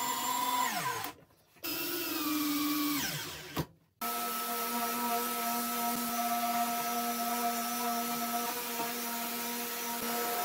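A cordless drill-driver runs briefly twice, its pitch falling each time it stops. About four seconds in, a random orbital sander with a dust-extraction hose starts and runs steadily, sanding pine boards.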